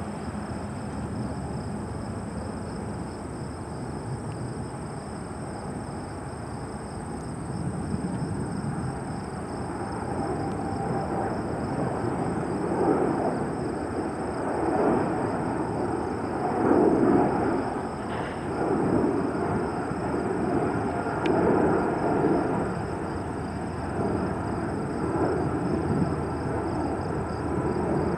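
Jet airliner engine noise: a low rumble that grows louder from about eight seconds in and swells unevenly as the plane comes closer.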